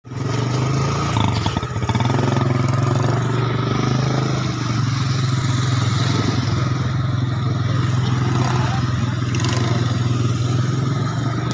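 Motorcycle engine running steadily at an even, unchanging pitch.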